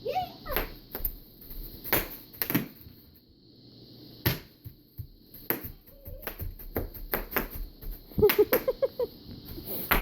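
Bubble wrap being popped: sharp single pops at irregular intervals, about a dozen in all. A short child's squeal near the start and a brief burst of laughter-like voice near the end.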